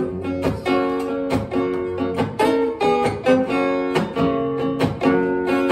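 Acoustic guitar strummed in a steady rhythm, about two strokes a second, with the chords ringing and changing.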